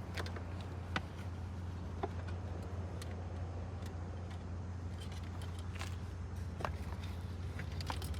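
Scattered light clicks and clinks of hands working with small parts and wiring, a few times a second at most, over a steady low hum.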